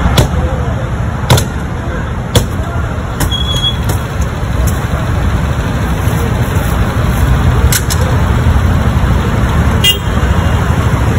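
Road traffic at a standstill: a steady low rumble of idling and slow-moving car engines, with a few sharp clicks and a brief high tone about three and a half seconds in.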